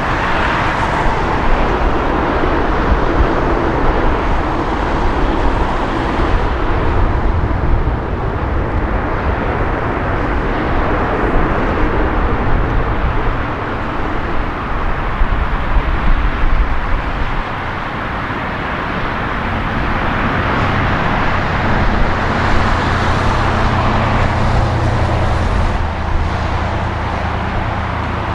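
Jet engines of a Boeing 737 running as the airliner rolls along the runway: a loud, steady rush of engine noise, with a low hum coming up near the end.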